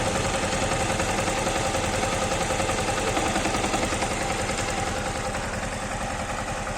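Yamaha MT-15's 155 cc single-cylinder engine idling steadily with a rapid, even pulse. It runs without the cam-chain rattle, the stretched cam chain and its tensioner having just been replaced.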